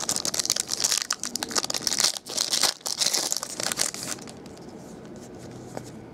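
Foil trading-card pack being torn open and crinkled, a dense loud crackling that dies down about four seconds in as the cards come out.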